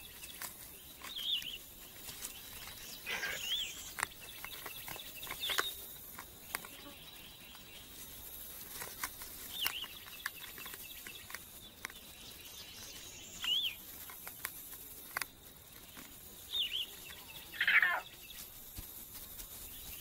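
Short, high chirping animal calls, one every few seconds, some rising then falling in pitch, with a longer call sweeping down in pitch near the end. Faint scattered clicks and scratches lie under them.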